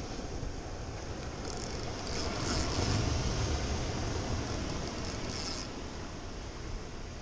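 Ocean surf washing against a rocky shore, with wind on the microphone. It swells as a wave breaks about two to four seconds in, with a high hiss over it.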